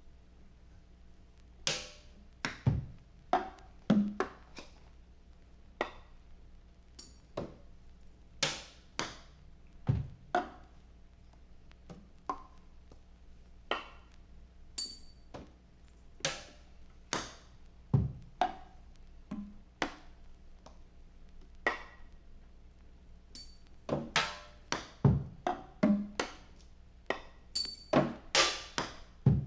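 Sparse, unevenly spaced percussion hits: dry woody knocks and clicks, a few with a deep thud, coming closer together near the end.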